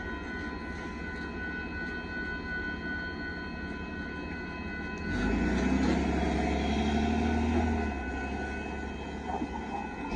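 Railroad crossing warning bell ringing steadily while the crossing gates rise. About five seconds in, a pickup truck drives across the tracks and its engine becomes the loudest sound for about three seconds, then fades.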